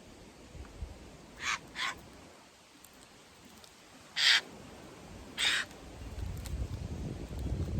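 Eurasian jays giving harsh, rasping screeches: two short ones close together, then a louder one and another about a second later. A low rumble comes in near the end.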